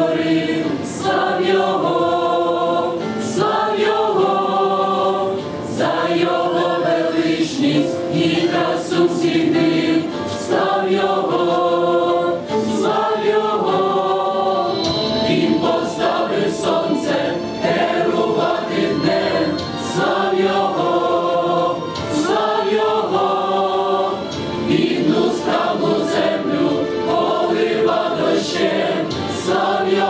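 Mixed church choir of men and women singing a hymn in parts, in chords that move every second or two.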